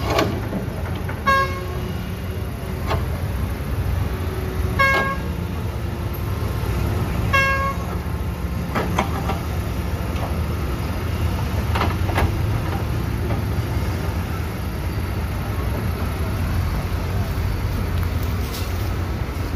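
Diesel engines of heavy earthmoving machinery, an excavator and dump trucks, running with a steady low rumble. A short vehicle horn toot sounds three times in the first eight seconds, with a few sharp knocks scattered through.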